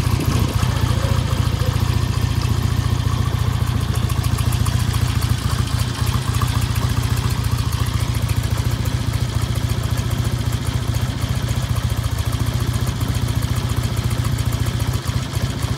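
1955 Ariel Cyclone's 650cc parallel-twin engine idling steadily.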